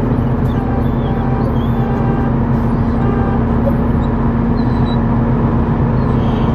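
A loud, steady mechanical drone holding one low pitch, from an unidentified machine or motor.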